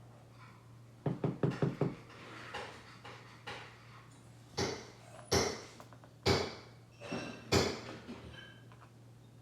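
Small metal padlock parts clicking and clinking as they are handled on a hard surface: a quick run of about five clicks a second in, then several sharper, slightly ringing metallic clinks about a second apart.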